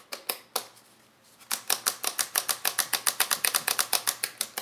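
Small slide switches on a jukebox amplifier's circuit board being flicked back and forth, a few single clicks and then a fast, even run of about seven clicks a second, working contact cleaner into oxidized switch contacts.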